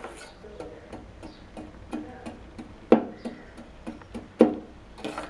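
Spoon clinking and scraping against a saucepan while jaggery melting in water is stirred, with irregular light ticks and two louder ringing knocks, about three and four and a half seconds in.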